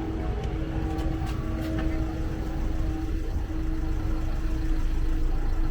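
A vehicle's engine running steadily: a low rumble with a constant hum over it.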